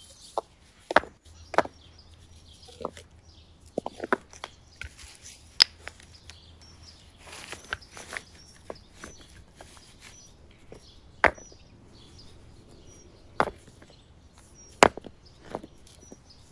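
Stones being picked up and set against one another: irregular sharp clacks of rock knocking on rock, a handful of them louder than the rest.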